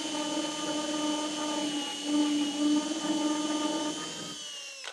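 Hand-held drill spinning a 3/4-inch Forstner bit as it bores into a block of spruce, with a steady motor whine. The pitch sags slightly just before the sound stops abruptly at the end.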